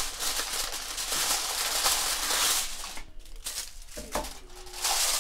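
Aluminium foil crinkling as it is pressed down and folded over the edge of a baking tray to seal it, then a quieter stretch with a single short knock about four seconds in.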